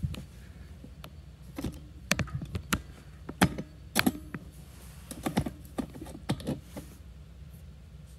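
Scattered light clicks and taps from a wrench and metal parts being handled at the bolts of a bicycle's rear sprocket, irregular and spread over several seconds.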